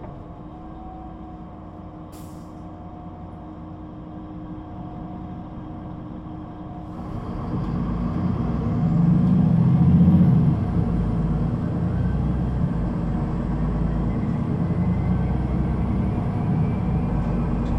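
Solaris Urbino 18 III articulated bus's DAF diesel engine and Voith automatic gearbox: idling steadily, a short hiss of air about two seconds in, then the engine pulls away from about seven seconds, loudest near ten seconds, and settles into a steady run with a faint rising whine.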